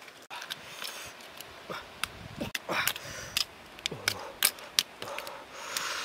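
Two dogs eating fish scraps from a woven basket: wet chewing and snuffling, with many short irregular clicks.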